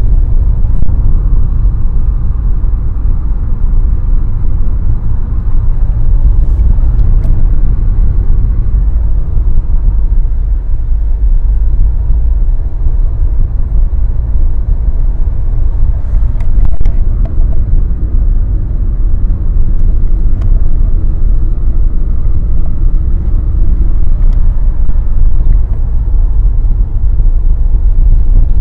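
A steady, loud low rumble with a few faint clicks.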